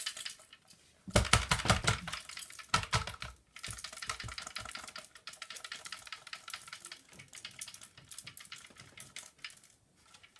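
Loose grains of pudding rice rattling and clicking inside the vintage Hoover Hooverette's nozzle head as it is shaken and handled. There are a few heavier knocks in the first three seconds. The rice is trapped in the head's base plate.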